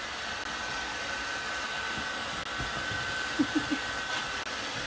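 Steady whooshing machine noise with a faint high whine, like a small electric blower running; three short, low blips sound about three and a half seconds in.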